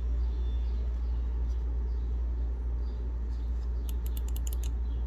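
Scroll wheel of a Razer DeathAdder V2 Mini gaming mouse rolled by a finger, giving a quick run of about eight small notch clicks about four seconds in, over a steady low hum.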